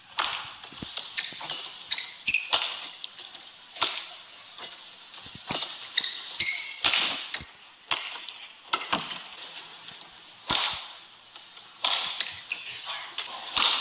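Badminton rally: a shuttlecock struck back and forth with sharp racket hits every half second to second and a half, with short high squeaks of shoes on the court.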